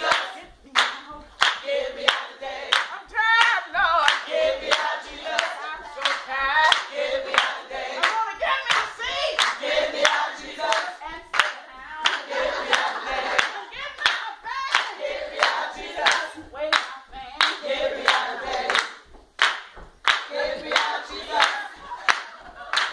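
A group of voices singing a call-and-response gospel chant, with steady hand clapping at about two claps a second.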